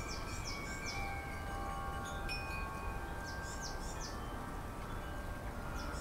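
Chimes ringing softly, several held tones overlapping, with two short clusters of quick, high, falling chirps about three and a half seconds apart.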